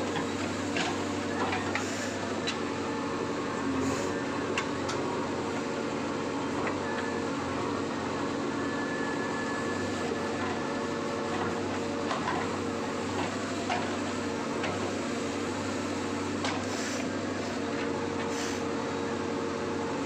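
JCB backhoe loader's diesel engine running steadily under load while the backhoe digs, with scattered knocks and scrapes of the bucket working soil and rubble.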